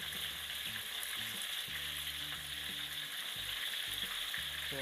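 Pandan-wrapped chicken wings and pandan leaves frying in hot oil in a wok, a steady sizzle, while metal tongs turn the pieces over.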